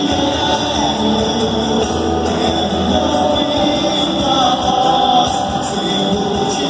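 Music with singing voices at a steady level, played and sung live at a sound check.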